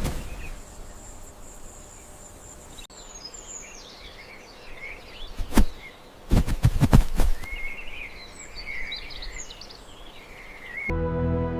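Jungle ambience: a steady high insect buzz, then chirping bird calls with several loud thuds in the middle. Music comes in near the end.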